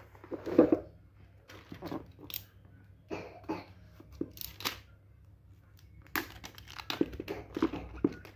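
Plastic shrink-wrap on a smartphone box crinkling and tearing as it is slit with a box cutter and pulled off, in a string of short irregular crackles that come thicker near the end, along with the light handling of cardboard boxes.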